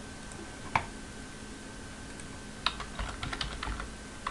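Typing on a computer keyboard: a single click a little under a second in, then a quick run of keystrokes in the second half.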